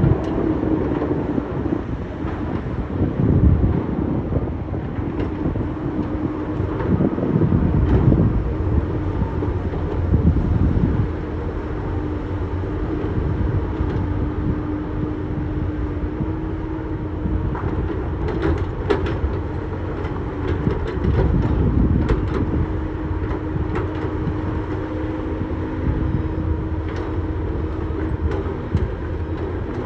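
Heavy earthmoving machinery's diesel engine running steadily under load, with rumbling surges early on and sharp metallic clanks and clicks in the second half.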